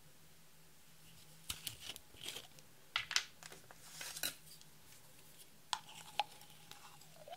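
A silver screw cap being twisted off a small bottle of glitter, a run of clicks and scrapes, then a wooden stick scraping against the bottle's neck with a few sharp clicks and a faint squeak near the end.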